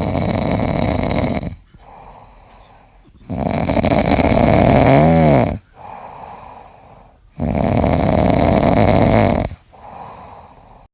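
A sleeping cat snoring: three loud, rasping snores about three to four seconds apart, with softer breaths between them. The middle snore carries a brief pitched, wavering tone near its end.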